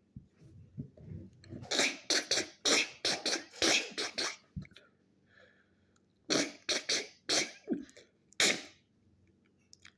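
A person making mouth sound effects: two runs of short, sharp hissing bursts, about three or four a second, with a pause between the runs.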